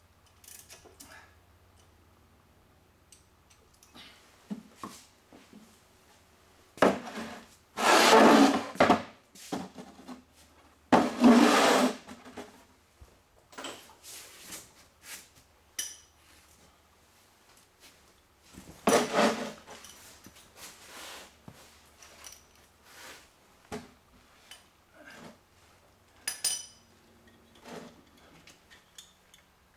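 Metal hand tools and brake parts clanking and clattering as they are handled, with loud bursts of clatter about seven, eleven and nineteen seconds in and lighter clicks and knocks between.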